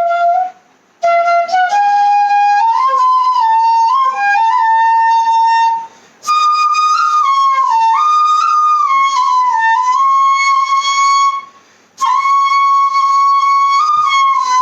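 Background music: a single flute-like melody, played in phrases with short pauses between them.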